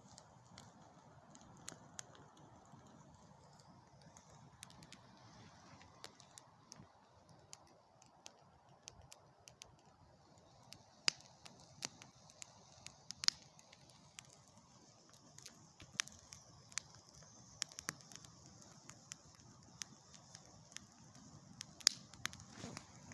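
Wood campfire crackling, with irregular sharp pops, a few of them louder.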